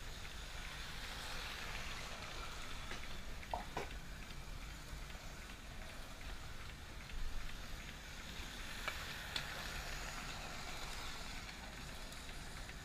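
Hornby Santa's Express model train running around its track: a small electric motor whirring and wheels rolling on the rails, growing louder twice as the train comes near, with a few light clicks.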